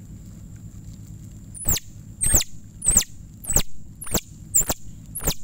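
Hand-blown plastic-bag game call: about eight sharp squeaks, each falling steeply in pitch, repeating roughly every half second from about one and a half seconds in. It is used as a lure that a squirrel will come chasing after when it hears it.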